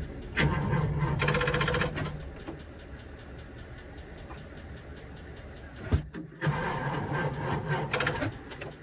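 Military truck's diesel engine being started and run. There are two loud clattering spells, one from about half a second in and one from about six and a half seconds in, with a quieter steady running sound between them and a single knock just before the second spell.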